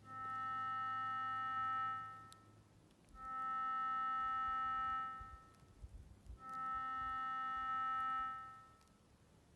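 A musical instrument sounds a held low C three times. Each note lasts about two seconds, starts up quickly, holds steady, and fades out, with a short pause before the next.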